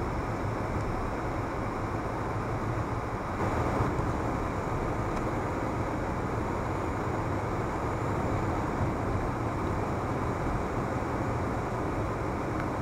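Steady road and engine noise inside a moving car's cabin, as picked up by a dashcam microphone: an even rumble of tyres on asphalt with the engine underneath, briefly a little louder about three and a half seconds in.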